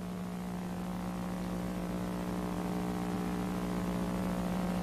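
Steady electrical hum with one strong low tone and several fainter higher tones over faint hiss, slowly growing louder.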